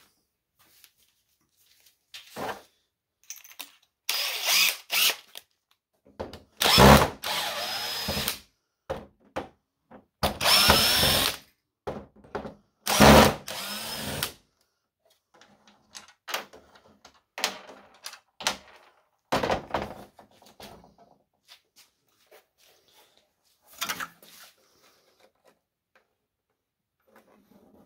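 Power drill-driver running in about four short bursts, backing screws out of a TV's back cover, with softer clicks and rattles of handling in between and after.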